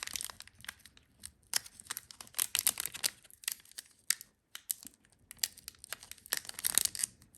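Plastic-foil wrapper of a hockey card pack crinkling and tearing in irregular, crackly bursts as fingers struggle to pull open a pack that is hard to open.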